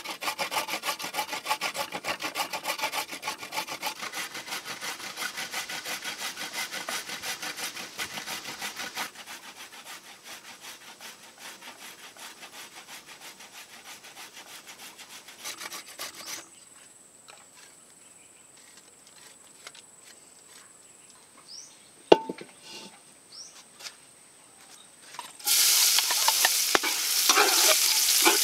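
Fresh turmeric root rasped in rapid strokes across a flat metal grater, softer after about nine seconds; then a quiet stretch with one sharp knock; then, about three seconds before the end, oil suddenly sizzling loudly in a wok as chopped aromatics fry and are stirred with a wooden spatula.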